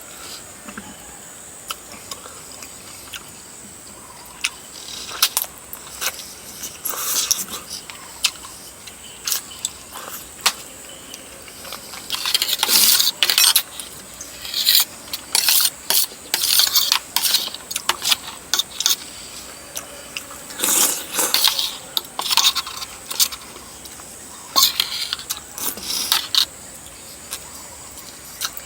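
Close-miked eating sounds: irregular wet clicks, crunches and slurps of chewing and slurping chicken feet and rice noodles, with cutlery clinking on a dish. The sounds come in busier clusters about twelve seconds in and again around twenty seconds.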